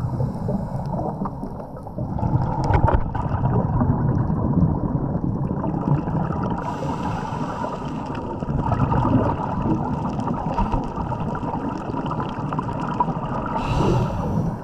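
Muffled underwater noise heard through a camera's waterproof housing: a steady dull rumble of water with a diver's exhaled bubbles gurgling. A brighter stretch of bubbling starts about six and a half seconds in, and a short burst comes near the end.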